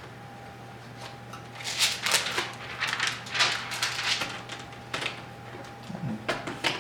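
Plastic screen bezel of a Dell Inspiron 15 laptop being handled and pressed onto the display lid: a quick run of dry plastic clicks and rustles through the middle, and a few more near the end.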